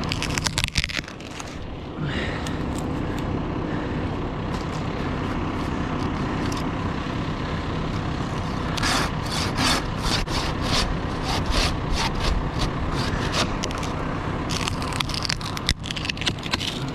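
A vehicle engine runs steadily in the background while a saw cuts a small branch in quick rasping strokes, in runs about a second in, from about nine to thirteen seconds, and again near the end.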